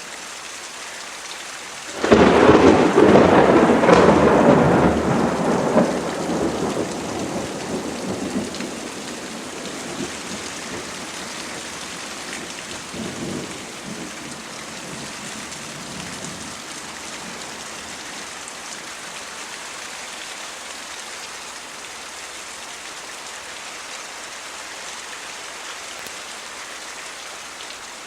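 Steady rain falling, with a sudden loud thunderclap about two seconds in that rumbles on and fades away over several seconds; a fainter rumble follows later, then steady rain alone.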